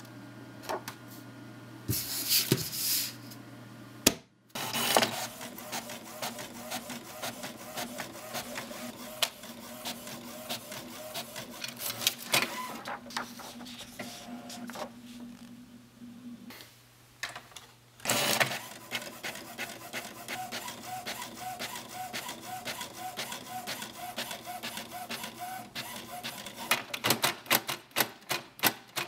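Desktop inkjet printer feeding a sheet of brown paper and printing on it: a steady motor hum with ticking from the paper feed and print head. It stops briefly a few seconds in, and near the end gives a run of quick, regular clicks.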